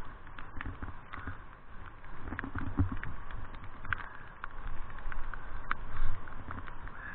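Raindrops ticking irregularly on a rafting camera's housing, over a steady hiss of rain on the river, with a few low thuds about three and six seconds in.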